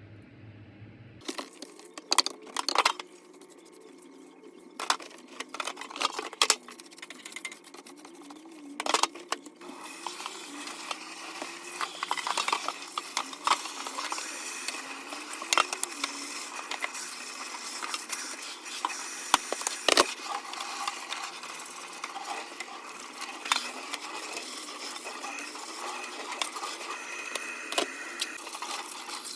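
Household objects being handled: a series of sharp clinks and knocks, with a steady rushing noise setting in about ten seconds in.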